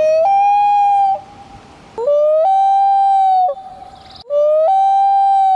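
Loon calling: three long, wailing notes, each starting lower and stepping up in pitch before being held, with short gaps between them. This is the haunting call often likened to a horror-film sound.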